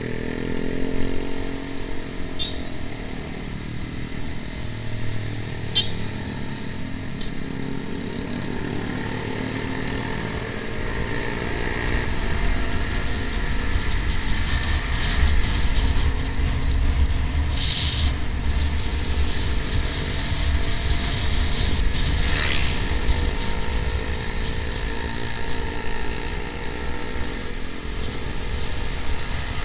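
Honda sport motorcycle's engine running on the move, its pitch rising and falling with the throttle, over a steady low rumble of wind on the microphone. A few sharp clicks break in now and then.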